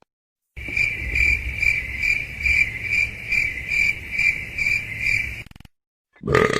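Cricket chirping sound effect: a high, steady chirp pulsing about two and a half times a second for about five seconds, then cutting off. A short, lower sound begins just before the end.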